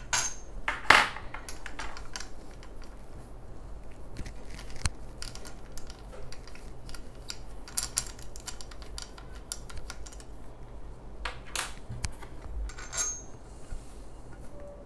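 Scattered light clicks and small metal clinks as the nuts and bolts are worked out of a child's tricycle front fork, with occasional knocks of the fork being handled.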